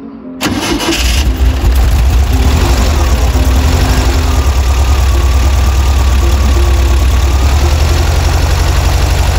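Volkswagen Kombi's air-cooled flat-four engine starting about half a second in and settling into a steady idle. It is a cold start, the first in three days after temperatures of −18 to −20 °C froze everything.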